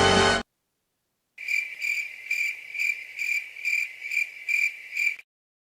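Stock crickets sound effect: crickets chirping in an even pulse of a little over two chirps a second, starting after a brief silence and cutting off abruptly near the end. The tail of a music clip stops suddenly just at the start.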